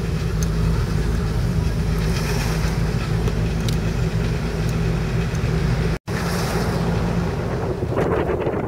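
1978 Corvette's V8 engine running at a steady speed, heard from inside the car with road noise as it drives. The sound cuts out for an instant about six seconds in, and gusty wind noise hits the microphone near the end.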